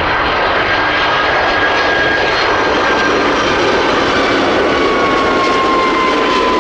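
Airplane engine sound effect: a steady rushing roar with a faint whine slowly falling in pitch.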